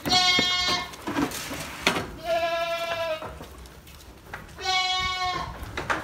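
Boer goats bleating: three long, high calls of about a second each, a couple of seconds apart, with a few short knocks between them.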